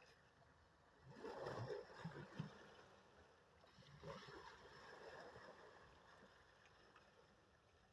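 Faint sea waves washing in, with a surge of water noise about a second in and a smaller one around four seconds.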